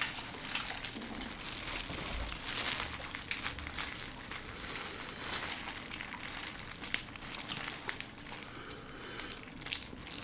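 Hands in thin disposable plastic gloves peeling a soy-sauce-marinated raw shrimp: the gloves crinkle and the shell cracks and tears in many small, irregular clicks and crackles.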